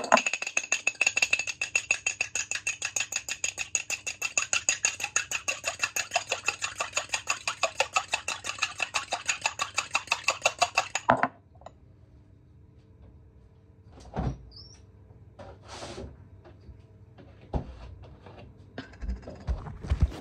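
A kitchen utensil beating fast and evenly against a bowl, about five clinks a second, as in whisking or beating a mixture. It stops abruptly about eleven seconds in, followed by a few scattered knocks and taps.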